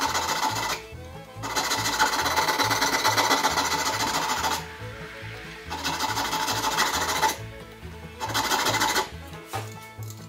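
A precision pattern maker's file rasping through the brass band of an antique carriage lamp head. It comes in four runs of rapid strokes, each one to three seconds long, with short pauses between. The file is cutting away the dented, age-cracked old band. Background music with a steady beat plays underneath.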